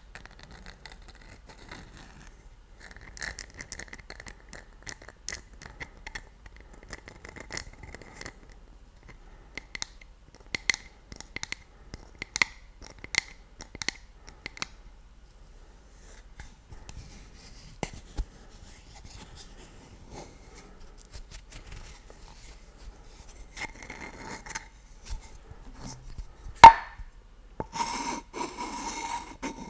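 Fingers tapping and scratching on an embossed ceramic mug close to the microphone, in irregular light taps with short pauses. Near the end comes one sharp knock, then a wooden stick scraping and rubbing against a decorated jar.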